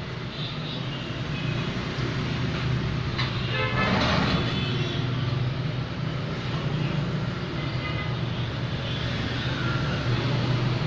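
Steady low motor hum with a noisy hiss, and brief high horn-like toots about three to four seconds in.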